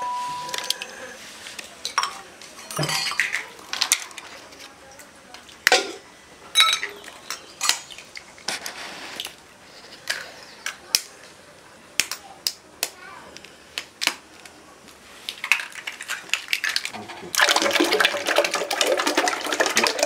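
Sharp clicks and clinks of eggs being cracked against steel tumblers, one after another. About 17 seconds in, a steady splashing pour of beaten egg into a large aluminium pot takes over.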